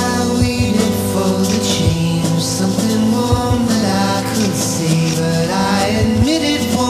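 Electronic background music with a beat under sustained chords.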